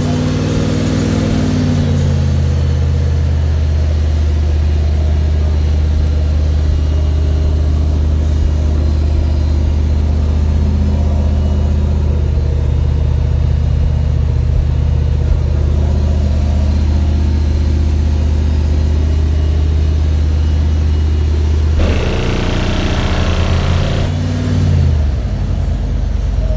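Two Crossfire XSV3 15-inch subwoofers in a pickup truck playing a loud, deep bass tone, heard from outside the truck. The tone slides down in pitch over the first two seconds and then holds steady; about twenty-two seconds in, a short burst of wider noise joins it and the tone slides down again.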